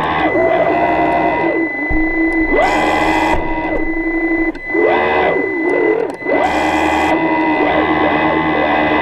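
Electric motors on an underwater camera rig whining, their pitch sweeping up, holding and falling back over and over as they speed up and slow down. A steady high thin tone runs underneath, and three short rushes of hiss come through, about a second before the start, about three seconds in and about seven seconds in.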